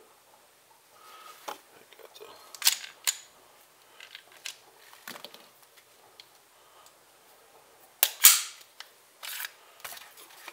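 Clear plastic bags crinkling in short bursts as they are handled, with a few light clicks and knocks. The loudest burst comes about eight seconds in.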